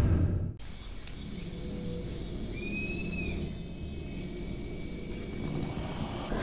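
Nature ambience of insects trilling steadily at a high pitch, with one short whistled call about two and a half seconds in. Music cuts off about half a second in.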